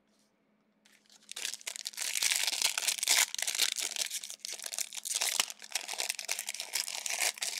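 Plastic wrapper of a 2023-24 Donruss Basketball trading card pack being torn open and crinkled. It is a dense run of crackling that starts about a second and a half in.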